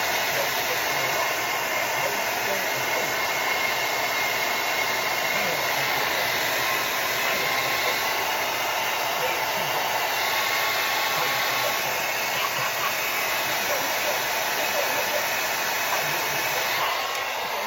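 Handheld hair dryer blowing steadily, with a faint whine from its motor, then switching off near the end.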